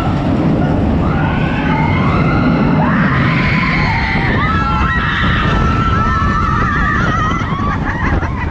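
Roller coaster riders screaming over a steady rumble of wind and the train running on the track, one wavering scream held for a few seconds midway.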